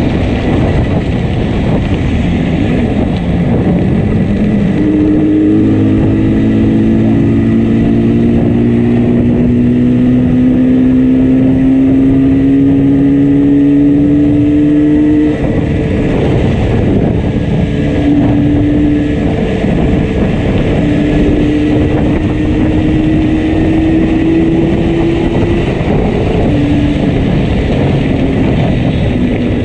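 Yamaha RD350 two-stroke parallel twin running on the road with one cylinder misfiring heavily. The engine note rises slowly twice as it pulls, under a steady rush of wind and road noise.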